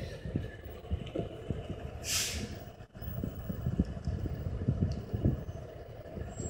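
Steady low rumble of a fire engine running at a fire scene, with irregular crackle over it and a short burst of hissing about two seconds in.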